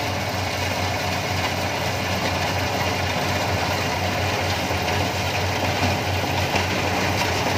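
Yanmar crawler combine harvester running steadily as its header cuts and feeds dry corn stalks: a constant low engine drone under a broad mechanical rush.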